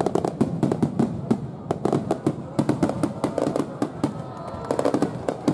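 Aerial fireworks going off in a dense, rapid barrage: many sharp shell bursts and crackling reports a second, overlapping without a break.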